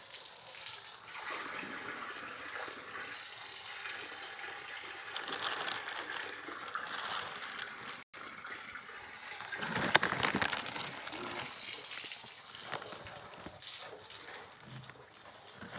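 Thin clear plastic sheeting crinkling and rustling as it is moved, with a louder spell of crinkling about ten seconds in.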